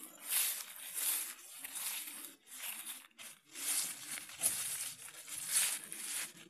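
Footsteps of a person and a dog walking through a deep layer of dry fallen leaves: the leaves crunch and rustle with each step, about two steps a second.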